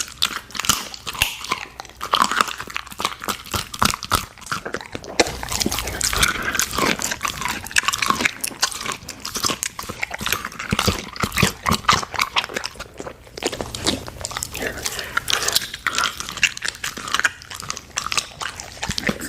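Golden retriever eating, a dense, irregular run of crunching bites and chewing.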